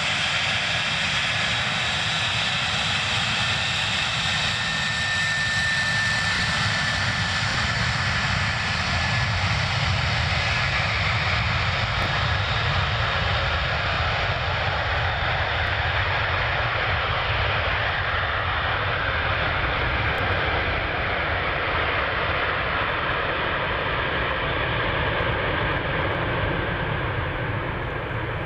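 Four Progress D-18T turbofans of an Antonov An-124-100 at takeoff power during the takeoff roll: a loud, steady jet noise with a faint whistle about five seconds in. It grows duller as the aircraft pulls away down the runway.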